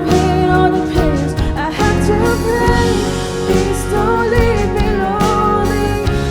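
A worship team playing and singing a Christian worship song, full band with a singing voice.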